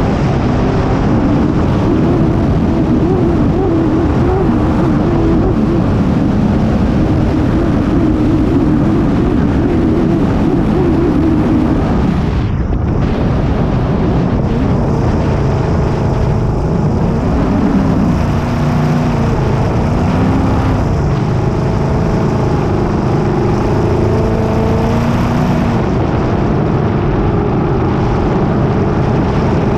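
Racing hydroplane's engine running hard at speed, heard from on board. The pitch wavers, drops about twelve seconds in, then rises and falls as the boat works through the course.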